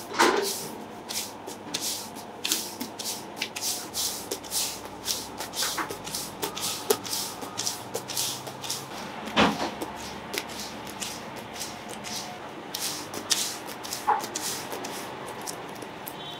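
Gloved hands patting and pressing bread dough flat on a floured table: a quick, uneven run of soft pats and crinkly rustles from the disposable gloves, with a couple of firmer knocks.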